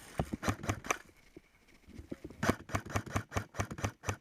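An airsoft gun firing in rapid strings of sharp clicks: a short run in the first second, then a longer steady run of about seven shots a second from about two and a half seconds in.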